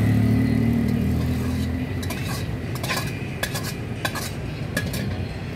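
Metal spatula clanking and scraping in a wok as kapau is stir-fried, with a run of sharp metallic clinks from about two seconds in. A low steady hum fades away over the first two seconds.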